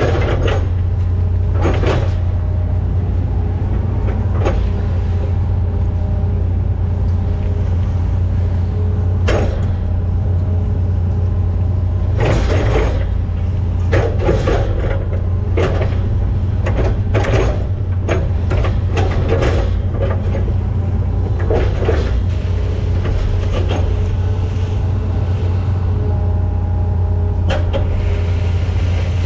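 Hitachi Zaxis 210 excavator's diesel engine running steadily under load, heard from inside the cab, with a hydraulic whine and scattered clanks and knocks as the arm and bucket work the ditch.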